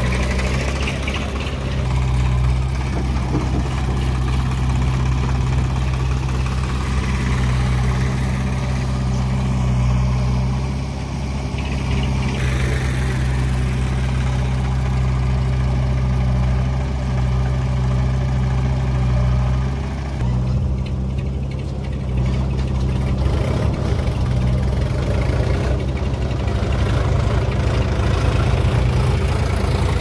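Diesel tractor engines idling close by: a steady low drone whose note shifts a few times.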